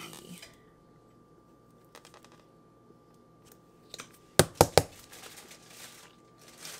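Quiet handling of taco toppings and a small sauce bottle, with three loud sharp clicks in quick succession about four and a half seconds in and light rustling after. A faint steady high-pitched hum runs underneath.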